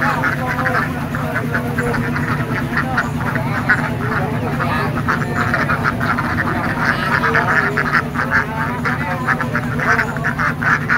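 A crowded flock of domestic ducks quacking continuously, many short calls overlapping at once, with a steady low hum underneath.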